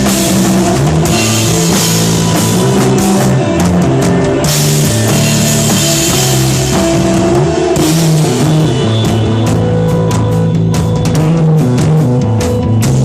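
Rock band playing: a drum kit with cymbals over held, shifting bass notes.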